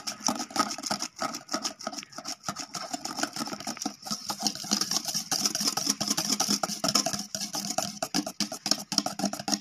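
Wire balloon whisk beating egg whites into whipped cream by hand in a metal bowl: the wires clatter against the bowl in a rapid, steady rhythm of clicks.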